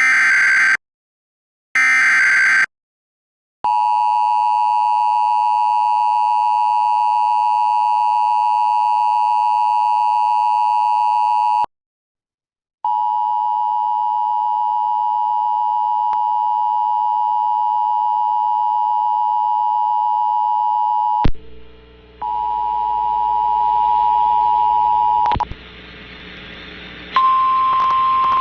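Emergency Alert System tones: the last two harsh bursts of the digital SAME header, then the steady two-tone attention signal for about eight seconds. After a one-second gap a second, duller attention tone runs for about eight seconds, followed by hiss with a wavering tone that cuts out twice, and a steady single tone near the end.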